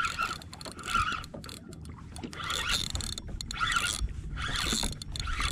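Spinning fishing reel being cranked to bring in line, its gears whirring in repeated bursts about a second apart, over a steady low rumble.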